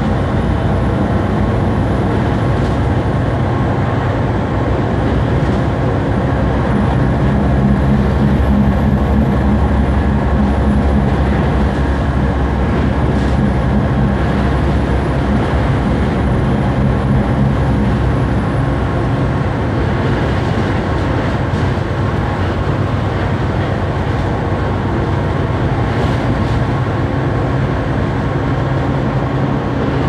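Double-decker bus heard from inside the lower deck while under way: a loud, steady drone from the engine and drivetrain. Over it runs a thin, high-pitched whine that wavers up and down in pitch and fades out about two-thirds of the way through.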